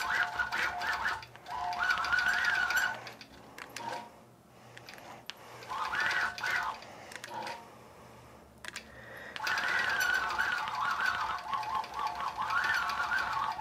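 Longarm quilting machine stitching, its motor whine rising and falling in pitch as it speeds up and slows. It stops and starts again a few times, going quiet for a couple of seconds about a third of the way in and again a little past halfway.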